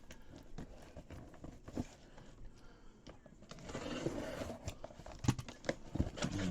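Cardboard box being opened and its packing paper handled: scattered crinkling, scraping and clicks, busier in the second half.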